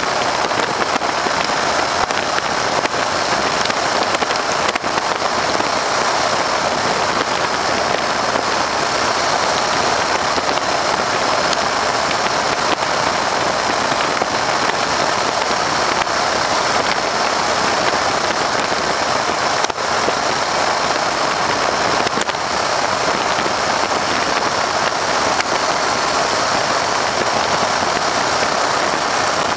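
Steady rush of wind over the microphone in the open cockpit of a Stearman biplane in flight, blended with the drone of its radial engine.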